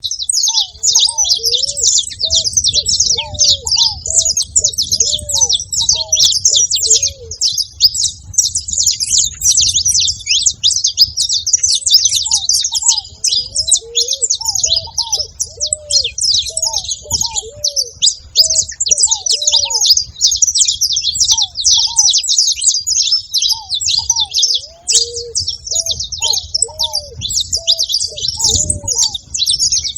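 Saffron finches chirping and singing in a dense, fast, high-pitched chatter that never lets up. Runs of lower, short arching call notes come in and out between the chatter.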